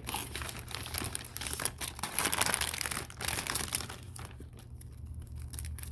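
Packaging crinkling and rustling as small gift items are handled and unwrapped, busiest for the first few seconds and quieter near the end.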